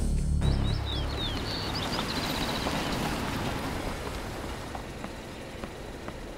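A car pulling up and coming to a stop, its running sound slowly fading. Birds chirp briefly in the first couple of seconds.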